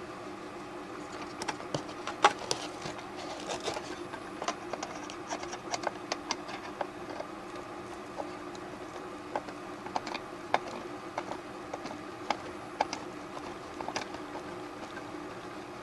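Irregular small clicks, taps and scrapes of hands handling a plastic O gauge caboose and its small screws, the body being worked loose from its frame. A steady low hum runs underneath.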